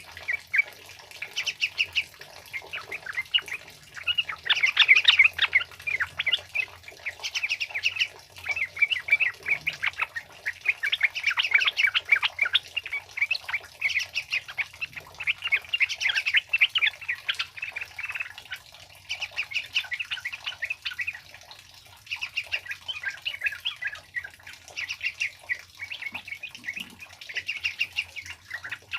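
Yellow-vented bulbuls (trucukan) chattering in fast bursts of sharp, quick notes, phrase after phrase of one to two seconds with short gaps between.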